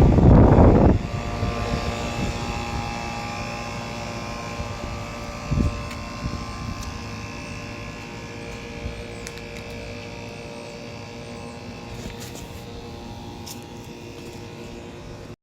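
R-22 air-conditioning condenser unit running: its fan and compressor give a steady hum with several fixed tones that slowly grows fainter. A loud rush in the first second and a short thump about five and a half seconds in stand out over it.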